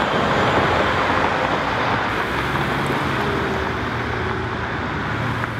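Steady road traffic noise: a continuous rush with the low hum of a vehicle engine under it, easing off slightly toward the end.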